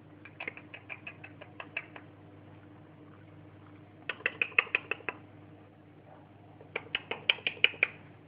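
Eurasian badger chewing its food noisily, in three runs of quick chomps, several a second, near the start, in the middle and near the end.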